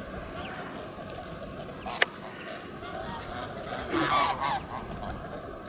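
Chinese geese honking, a run of calls with the loudest, harshest honk about four seconds in. A single sharp click about two seconds in.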